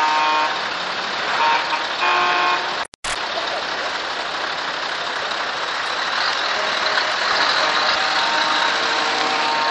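Truck air horns blowing in short chord-like blasts, one around the start and two more within the first two and a half seconds, over the steady engine and road noise of heavy trucks rolling past. The sound cuts out for a moment about three seconds in, after which the truck noise goes on with fainter horn-like tones in the second half.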